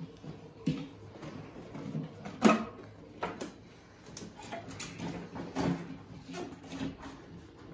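Cardboard packing being handled and pulled about inside a 20-gallon glass aquarium tank: rustling and scraping with a few knocks, the sharpest about two and a half seconds in.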